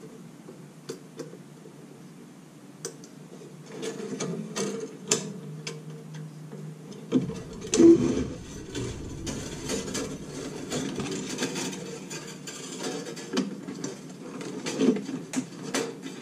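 Nichrome wire being threaded and pulled through an icemaker's aluminium cutter-grid frame: scattered small clicks, ticks and scraping of wire against metal, busier from about four seconds in, with the loudest knock about eight seconds in.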